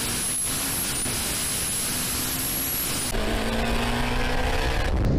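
Turbocharged Mitsubishi Evo engine pulling hard at full throttle, heard from inside the cabin, with a high whine over it that dips briefly twice. About three seconds in it cuts to another engine at full throttle during a highway roll race.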